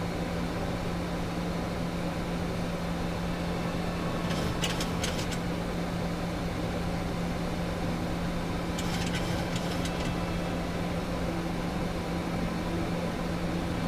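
Steady airliner cockpit noise: a constant low hum under a rushing of air. Two short bursts of crackling clicks come about four and a half and nine seconds in.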